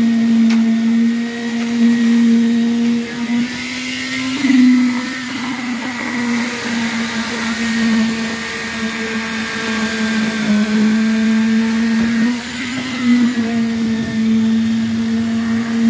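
Concrete needle vibrator running in freshly poured roof-slab concrete, giving a steady high-pitched hum that wavers briefly a few times.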